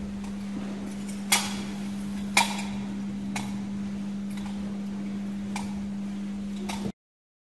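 Metal censer (thurible) swung in incensation, its chains clinking against the bowl about once a second: five sharp clinks, the first two loudest, over a steady low hum.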